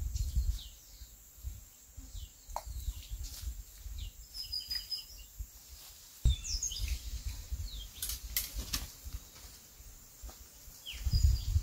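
Small birds calling with short, high, downward-sliding chirps and a brief steady whistle, over a low rumbling noise that grows louder near the end. A few sharp clicks are heard about two-thirds of the way through.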